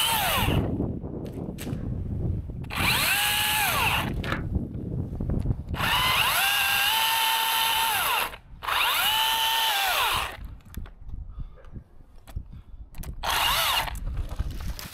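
Battery-powered top-handle chainsaw run in five short bursts on the trigger. Each time the electric motor whines up in pitch, holds and winds back down, and the longest burst comes near the middle.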